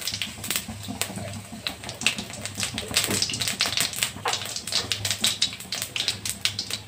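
Cumin seeds crackling and popping in hot oil and ghee as a tempering: many quick, irregular pops throughout.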